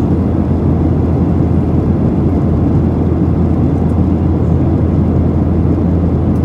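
Steady low cabin rumble of a Boeing 737-800 in flight, heard from a seat over the wing: its two CFM56-7B engines and the rushing airflow, with a constant deep drone underneath.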